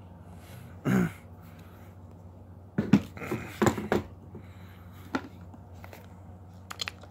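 Handling of a Hawk 982 12-gauge pump shotgun: a cluster of knocks and clicks about three to four seconds in as it comes onto a wooden table, and a few lighter clicks later, over a faint steady hum.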